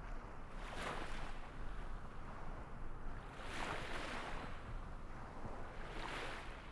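Small waves washing, the hiss swelling and fading three times over a steady low rush.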